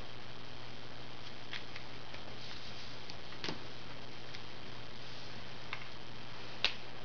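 Plastic felt-tip markers being handled: a few light clicks and taps, the sharpest near the end, over a steady recording hiss and low hum.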